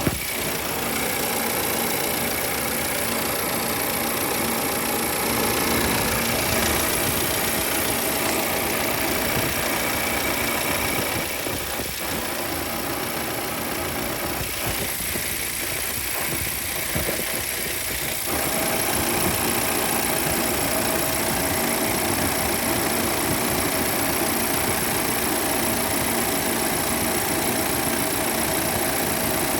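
Audi Q5's 2.0-litre turbocharged four-cylinder engine idling steadily after a cold start.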